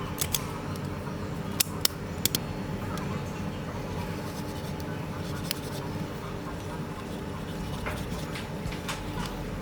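Steady hum of workbench equipment with a few sharp clicks of small tools, mostly in the first couple of seconds.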